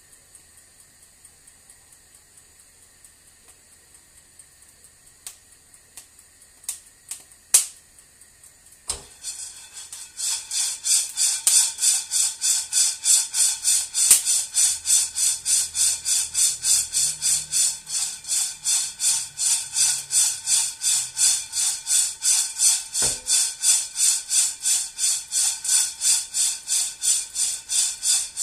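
Roasting coffee beans tossed and shaken in a frying pan: after a few sharp clicks over a faint steady hiss, the beans start rattling and sliding across the pan about ten seconds in, in a steady rhythm of about three shakes a second.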